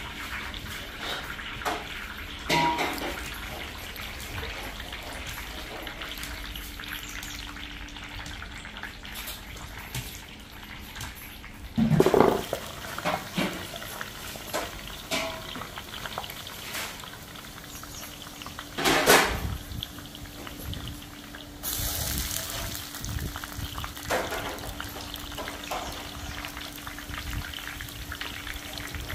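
Hot oil sizzling and bubbling as phulwadi deep-fry in a large iron kadhai. A few loud metal clanks of the perforated ladle against the pan come about 12 and 19 seconds in. Past two-thirds of the way through, the sizzle turns brighter and hissier.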